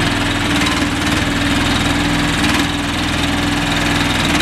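Engine of a remote-controlled shed buggy running steadily as it drives a loaded shed away from the delivery truck.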